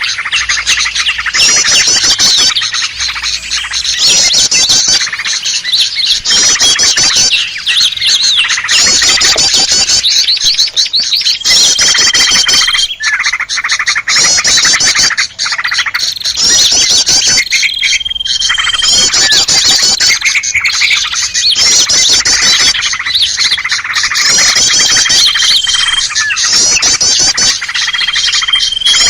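Busy mixed chorus of small songbirds, such as prinias and bulbuls, layered as a looped lure recording: rapid high chattering trills repeat in short blocks. From about the middle on, a clear held whistle note cuts in four times.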